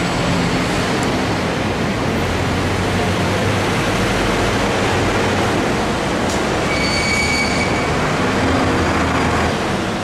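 Steady, loud rumble of a vehicle in motion, with a brief high squeal about seven seconds in.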